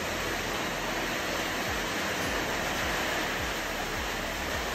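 Heavy tropical rain pouring down, heard as a steady dense rushing hiss.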